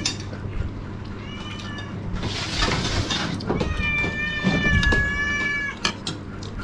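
A cat meowing off camera: a short meow about a second in, then one long drawn-out meow from about three and a half to six seconds, with a brief burst of hiss in between.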